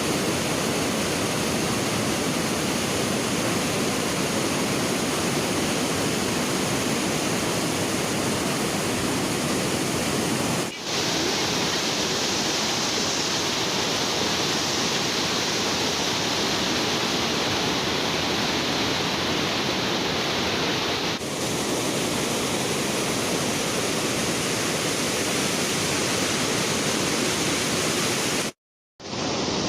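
Steady, loud rush of water pouring through the dam, broken by brief dips about a third and two thirds of the way in and a moment of silence near the end.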